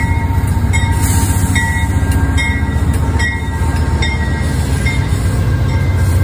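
Amtrak GE Genesis P42DC diesel locomotive pulling out past at close range. Its V16 diesel engine makes a loud, rapidly pulsing low throb as it goes by, and the Amfleet coaches follow behind it.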